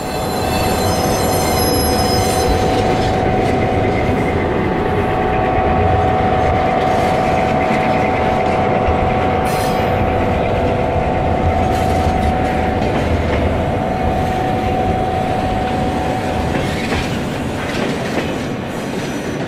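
1:29-scale model diesel locomotives and freight cars rolling past close by, with a steady tone from the locomotives running over the dense rolling noise of the wheels. The tone fades about three seconds before the end, as the hopper cars follow.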